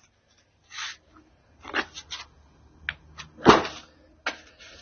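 Old, brittle sound-dampening pads being pried and broken off a car's steel floor pan: a string of short cracks and scrapes, the loudest about three and a half seconds in.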